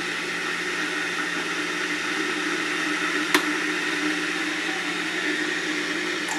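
Small electric kettle, just repaired, heating water with a steady hissing, the sound of it working again. A single short click sounds about three seconds in.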